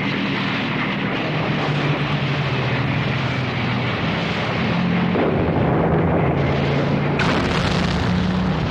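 Propeller fighter aircraft engines droning, a low hum that shifts in pitch, joined by rushing explosion noise from about five seconds in and a sudden, sharper blast about seven seconds in.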